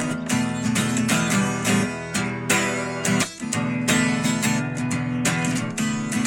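Acoustic guitar strummed in a steady rhythm with no singing, the strokes broken by a short pause just past halfway.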